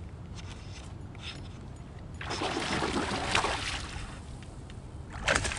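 Water splashing and churning from a hooked largemouth bass fighting at the surface near the kayak, in two bouts: one lasting a couple of seconds in the middle and another starting near the end.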